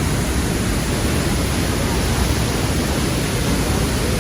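Steady roar of a waterfall: a loud, even rush of falling water with no breaks.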